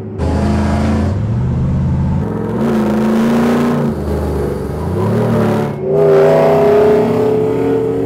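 Ford 5.0 Coyote V8 in a 1960 Ford F250 crew cab accelerating under load, heard from inside the cab. The engine note climbs and drops back at each gear change, about three times.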